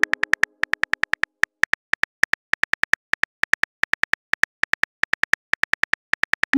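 Phone keyboard typing sound effect: rapid, identically pitched key clicks at an uneven pace, about six a second, as a text message is typed out letter by letter. A short rising swoosh begins right at the end.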